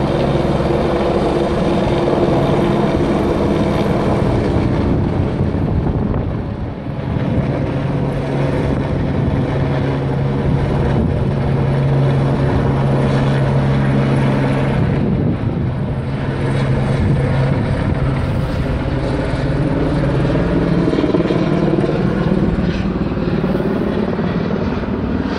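Helicopter flying overhead, its rotor and turbine running as a steady, loud drone whose pitch shifts slowly as it passes.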